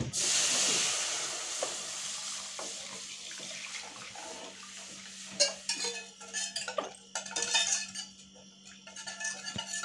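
Beetroot juice mixed with cornflour poured into a nonstick pan: a loud splashing hiss that starts suddenly and fades over about five seconds. Then a wire whisk clicks and knocks against the pan as the juice is stirred.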